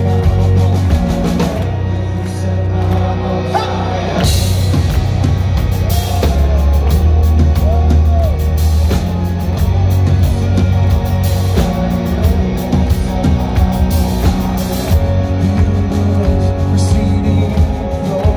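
Live rock band playing loudly through a concert PA: electric guitar over bass and drums, with a few bending notes.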